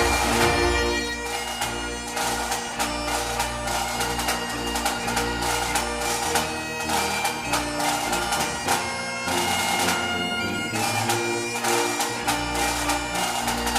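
Background music of Scottish bagpipes playing a melody over steady held drones, with a low accompaniment underneath.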